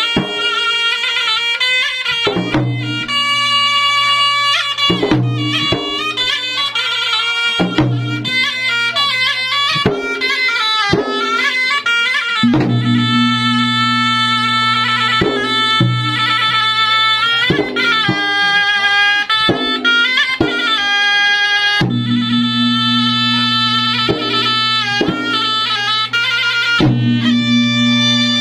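Traditional Maros gendang music: the drums beat a steady pattern of strokes under a loud, reedy wind instrument playing an ornamented melody.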